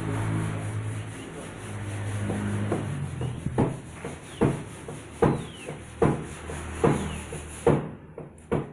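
Rhythmic hand-tool work on car bodywork: six sharp strokes, evenly spaced about 0.8 seconds apart, starting a few seconds in. Before them runs a low steady hum.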